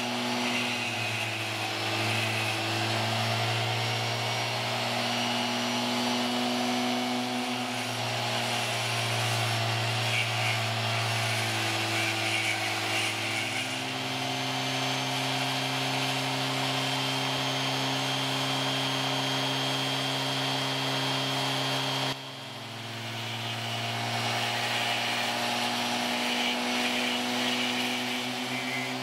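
Dremel-type rotary tool running steadily with a diamond burr grinding into wet Welsh slate: a motor hum under a gritty grinding hiss. The pitch lifts slightly about halfway through, and about two-thirds through the grinding briefly drops away before building back up.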